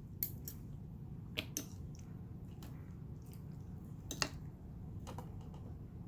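A few light taps and clinks of utensils against dishes, scattered and irregular, the loudest about four seconds in, over a low steady hum.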